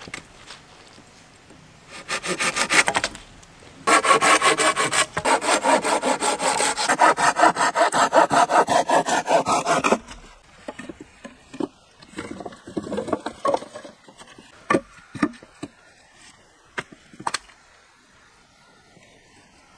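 Folding hand saw cutting through a thin log with quick, even back-and-forth strokes, a short run first and then a longer one that stops about halfway through. After that, scattered wooden knocks as cut poles are picked up and laid on a pile.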